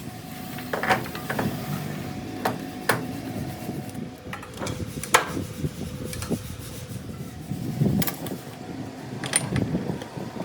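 Irregular sharp knocks and taps, about seven in all, over a rough scraping, rumbling background: hand work on metal parts in a workshop.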